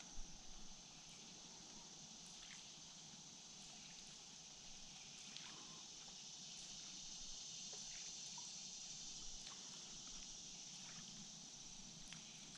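Faint open-water quiet: a steady high insect hum from the wooded shore, with light water trickling around a kayak hull and a few soft clicks. There is a short knock just after the start.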